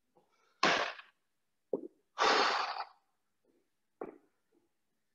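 Hard, breathy exhalations of a man catching his breath after burpees: two long forceful breaths out, the first about half a second in and the second about two seconds in, with shorter breaths or grunts between and after them.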